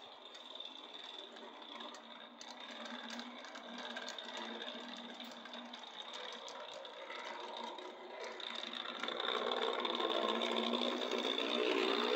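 Model steam locomotive and its train running slowly over the track and through a turnout, the small motor and wheels whirring steadily without stalling. It gets louder about two-thirds of the way in as it comes close.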